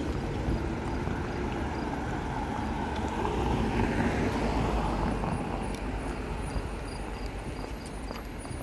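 Road traffic with a vehicle passing close by, growing louder to about four seconds in and then fading away over a steady low rumble.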